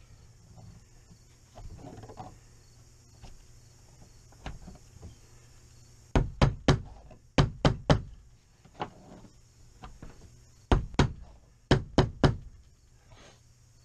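Claw hammer tapping gently on a pop-up camper's aluminum roof track, driving the canvas's edge strip in until it locks into the track. The taps come in quick runs of two to four, the first about six seconds in, with a few fainter taps before.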